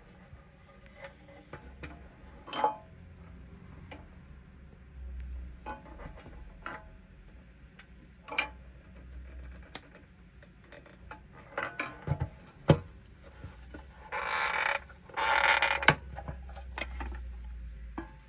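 Metal parts of a PT-1 gasoline camping stove being handled and worked: scattered clicks, taps and creaks, a sharper knock past the middle, and two short noisy rasping bursts near the end.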